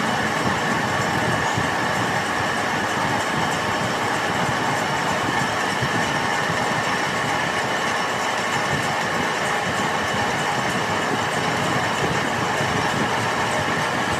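Lathe running steadily during a metal-spinning job: a constant machine noise with several steady whining tones and no pauses.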